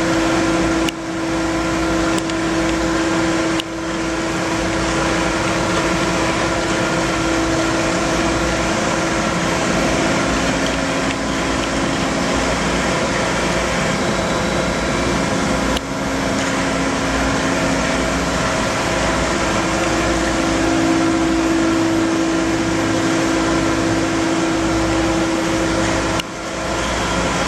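Steady mechanical hum of running industrial machinery, plausibly the EDM's pumps and cooling fans under power, with a steady droning tone that fades and returns. The hum drops out briefly a few times.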